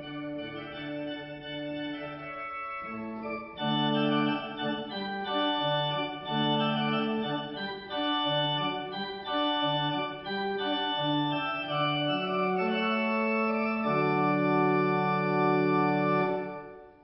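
Slow instrumental music of held chords. It grows louder about three and a half seconds in and ends on a long chord that fades out near the end.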